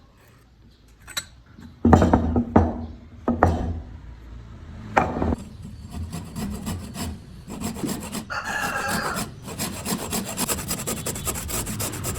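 Wood being worked with hand tools: a few sharp knocks about two seconds in and another near five seconds, then a steady run of fast rasping, scraping strokes on wood.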